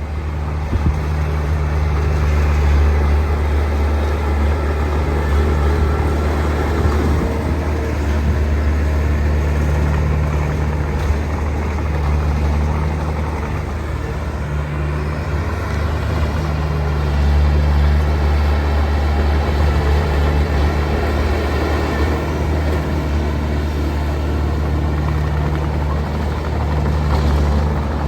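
Heavy diesel engine of earthmoving machinery running, a deep steady rumble that swells and eases a few times.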